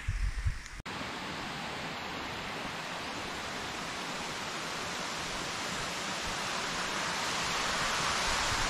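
Steady, even rushing hiss that grows slowly louder. Before a cut about a second in, there is a short spell of low wind rumble on the microphone.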